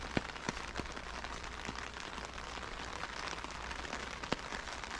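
Steady light rain falling on a wet street: an even patter with a few sharp ticks of single drops here and there.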